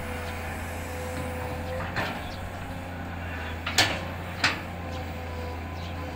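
Long-reach hydraulic excavator working its bucket into a soil bank: the engine runs steadily under a faint steady tone. Three sharp knocks come about two, four and four and a half seconds in, the middle one the loudest.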